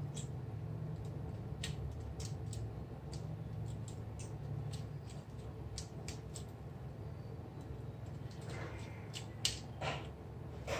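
Scattered light clicks and ticks of small tools and parts being handled during a DSLR shutter-assembly repair, at an irregular pace with a small cluster near the end. A steady low hum runs underneath.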